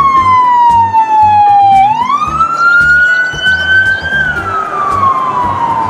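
Police car siren wailing: a single loud tone sliding slowly down, then up, then down again. Background music plays beneath it.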